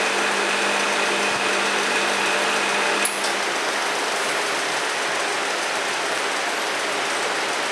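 Nozzle-type vacuum packing machine running its cycle on a bag of grain: a steady mechanical hum with a thin high whine over a hiss of moving air. About three seconds in a click sounds and the hum and whine stop, leaving a slightly quieter steady hiss as the cycle moves to its next stage.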